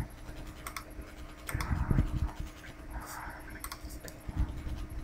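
Faint computer mouse clicks and scratchy rubbing of the mouse being dragged on the desk, with a few soft low thumps.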